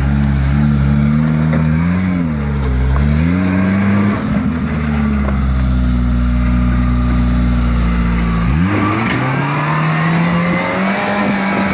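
Suzuki four-wheel drive's engine working under load as it crawls up a muddy rock step, the revs sagging and recovering a few times. About eight and a half seconds in it is revved up sharply and held high as it climbs.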